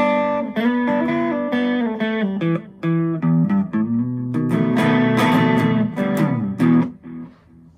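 Outro music played on guitar: a quick run of plucked notes that ends about seven seconds in.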